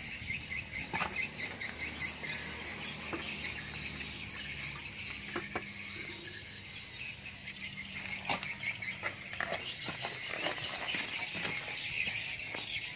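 Insects chirring steadily in a high, fast-pulsing drone, with a few scattered clicks and knocks.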